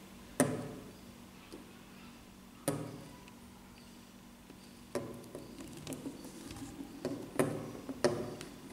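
Plastic toy eggs being handled and set down on a wooden tabletop, knocking against the wood and each other: a few sharp clacks a couple of seconds apart, then a run of lighter taps and clatters near the end.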